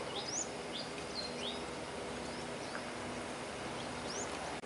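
Sunbirds calling: a scattering of short, high, thin chirps, several close together in the first second and a half, then sparser, over faint steady background hum.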